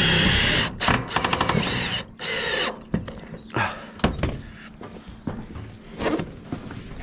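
Cordless DeWalt drill driving screws into sheet-metal roofing: a short run of the motor, then a rapid train of clicks about a second in, another brief run, and a few lighter knocks on the metal.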